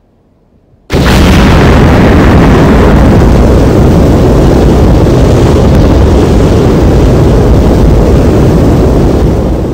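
Nuclear explosion sound effect: a sudden blast about a second in, then a long, loud, deep rumble that fades near the end.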